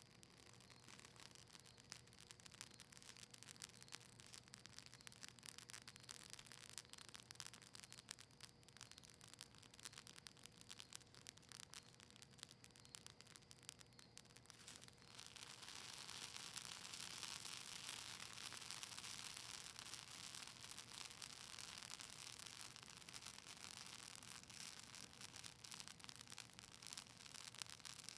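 Campfire of cedar leaves and maple wood crackling with a dense run of small, fine pops. About halfway through, a steady hiss joins the crackle and stays.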